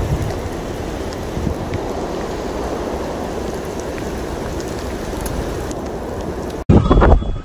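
Steady rain falling, an even hiss with a few faint drips. Near the end it cuts off suddenly and gives way to loud, gusty low rumbling.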